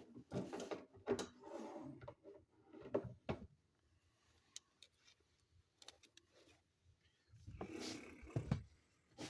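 Handling noise: scattered knocks, scrapes and rustles, bunched in the first few seconds and again about eight seconds in.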